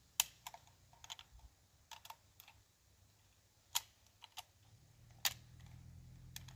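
Scattered sharp metallic clicks of 7.62×39 cartridges being handled and pushed into a rifle magazine, with three louder clicks spread through and a faint low hum coming in after the middle.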